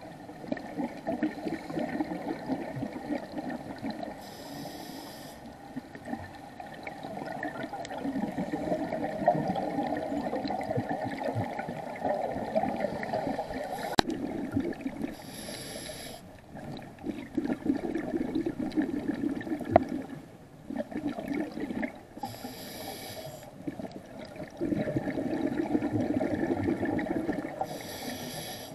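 Scuba diver breathing through a regulator: four short hisses of inhaled air and, between them, long stretches of bubbling exhaled air.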